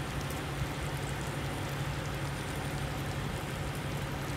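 Steady low hum and hiss of idling big-rig diesel engines at a truck lot.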